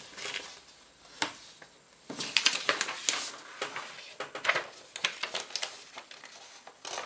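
Sheets of paper being handled and pulled away: a sharp tap, then a spell of crackly paper rustling.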